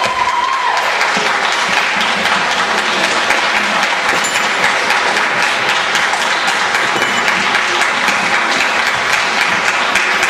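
Audience applauding steadily in a hall, the dense clatter of many hands clapping. The last held note of the music ends just under a second in.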